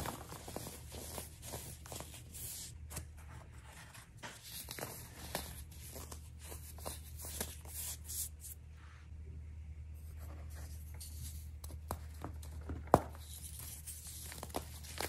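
Dried baking soda chunks crunching and crumbling as they are squeezed between the fingers: a close run of fine crackles and gritty crushing, easing off for a moment past the middle, with one sharp louder snap near the end.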